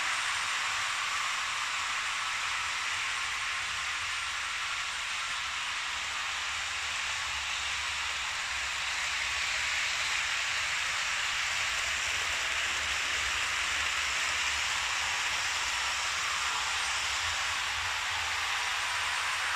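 Several Märklin H0 model trains running on Märklin C-track laid on a wooden floor: a steady rushing of wheels and motors over the plastic track, with a low rumble underneath.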